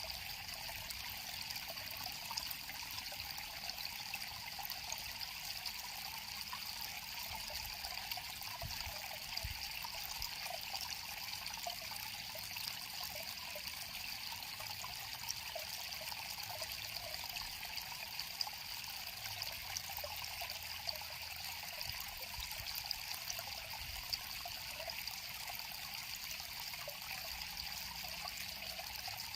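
River water flowing steadily, with a constant rush of water full of small quick splashes and trickles.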